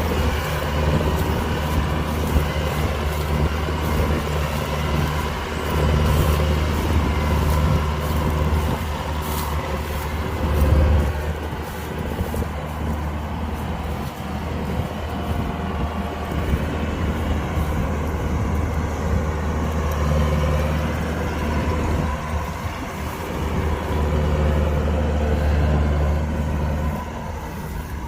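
Kubota DC-105X combine harvester running while harvesting rice: a steady diesel engine drone over a dense rush of machinery noise from the cutting and threshing. The low drone swells and eases for several seconds at a time as the load changes.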